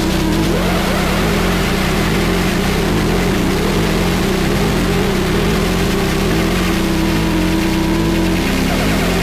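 Harsh noise music: a dense, unbroken wall of static filling the whole range, with steady low droning tones underneath, at a constant loudness.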